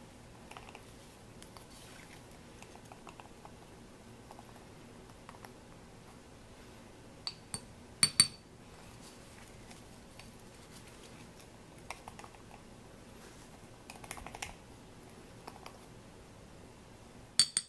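Stainless steel measuring spoon scraping ground cumin out of a spice jar and tapping against the rim of a glass mason jar: soft scrapes and small clicks, with a few sharp ringing clinks about eight seconds in and again near the end.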